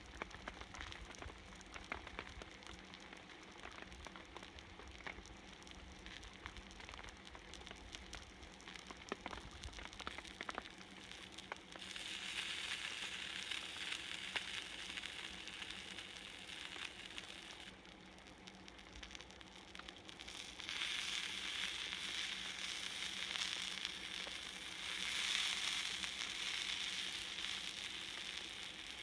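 Salted mackerel fillet sizzling on a hot iron griddle. The sizzle is softer with scattered crackles at first, swells louder about twelve seconds in, eases briefly, then swells again from about twenty seconds in.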